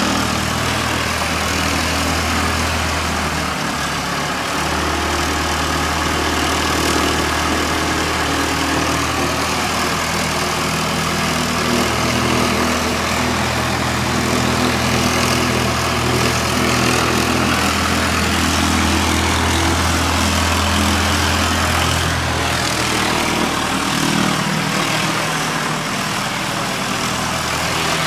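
Light aircraft piston engine running steadily nearby: a continuous low drone with a hissing wash above it. The deepest part of the drone drops away about 23 seconds in.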